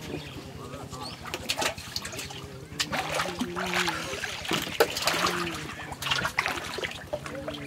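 Water splashing and dripping in irregular surges as a swimmer breaks the surface of the river, splashes with an arm and hauls himself up out of the water.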